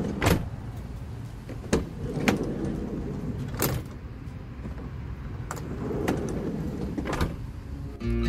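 VW T5 van's sliding side door being worked on its newly fitted lower roller, sliding open with a series of sharp clicks and clunks from the latch, handle and runner, over a steady low rumble.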